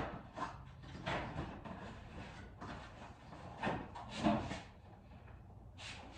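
Irregular handling noises: a string of short scrapes and rustles, loudest about four seconds in.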